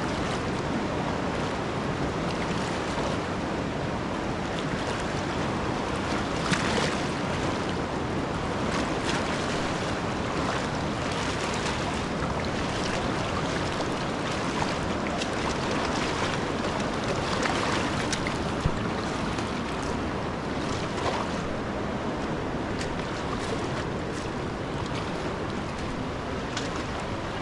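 Steady rushing of moving water, with a few short, sharp sounds scattered through it.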